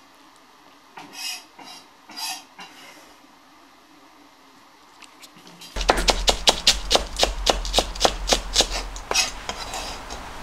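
Kitchen knife rapidly shredding cabbage on a plastic cutting board, a fast even run of about five or six chops a second that starts about six seconds in, over a low steady hum. Before it, only a few soft rustles.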